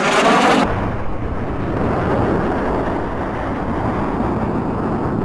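Jet roar of a Canadair CF-5 fighter's twin J85 turbojets flying past low: a rising rush that changes suddenly, under a second in, to a steady deep rumble.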